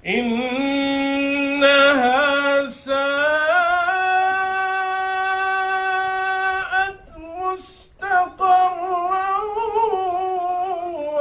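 A man's voice chanting a Quran verse in melodic recitation (tajweed), holding long, drawn-out notes with wavering ornaments, with two short breaths about seven and eight seconds in.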